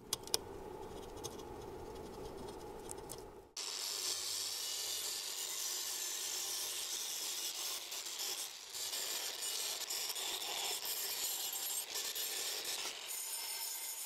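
Angle grinder with a wire brush wheel scrubbing the aluminium alternator housing to strip dirt and corrosion. It cuts in suddenly about three and a half seconds in with a loud, steady scratchy noise. Before that, a quieter stretch with two small clicks comes while a metal scraper works at the housing's label.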